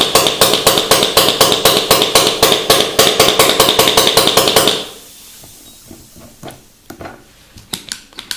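The pneumatic cylinder and quick exhaust valve of a homemade semi-automatic airgun cycle rapidly on tank air, giving a fast run of sharp clacks with puffs of exhaust, about five a second. The run stops just before five seconds in, leaving a few faint clicks.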